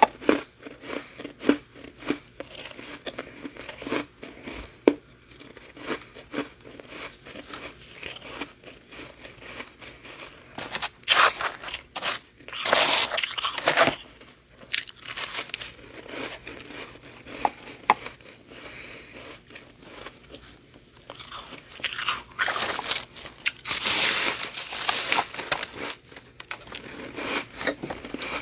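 Close-up crunching and chewing of freezer frost: bursts of crisp crackling bites and chews, loudest in two spells about eleven and twenty-two seconds in, with scattered smaller crackles between.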